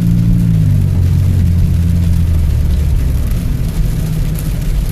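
Car engine and road noise heard from inside the cabin. The engine note drops about half a second in as the revs fall, then settles into a steady low drone.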